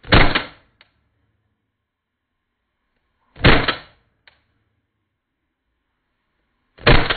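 KWA M1911A1 gas blowback airsoft pistol firing three single shots, about three and a half seconds apart, each shot with its slide blowing back. A faint short click follows the first two shots.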